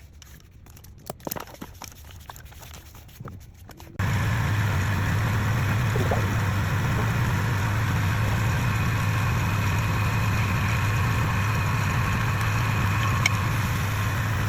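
Faint light clicks and knocks, then a few seconds in a steady machine hum comes in abruptly and runs on evenly: a woodturning lathe's motor running.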